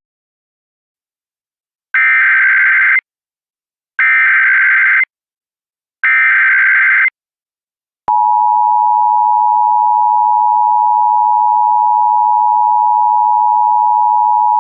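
Emergency Alert System signal for an AMBER Alert. First come three one-second bursts of digital SAME header data, about a second apart. Then, about eight seconds in, the steady two-tone EAS attention signal starts and holds.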